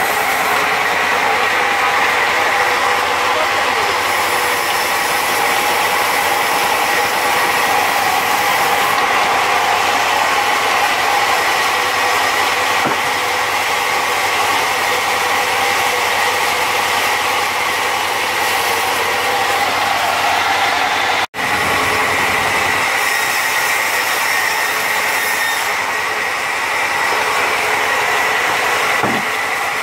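Large band sawmill running and sawing a log: a steady, loud mechanical din with a high whine, breaking off for an instant about two-thirds of the way through.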